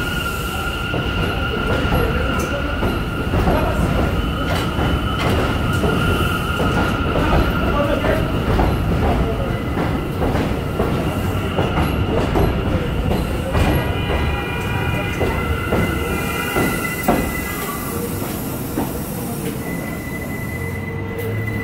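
New York City subway train running through the station, its wheels squealing in several steady high-pitched tones over the rumble and clatter of wheels on the rails. About two-thirds of the way through, the squeal changes to a different set of pitches.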